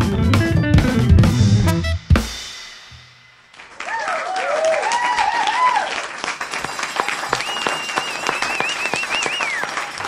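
A jazz octet of horns, keyboard, drum kit, bass and guitar ends a tune on a final hit about two seconds in, which rings out. Audience applause follows, with whoops and a long whistle.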